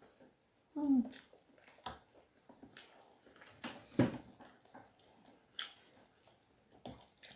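Metal forks clinking and scraping against a bowl of food while eating, with one sharp loud clink about four seconds in and a few lighter taps. About a second in there is a brief vocal sound.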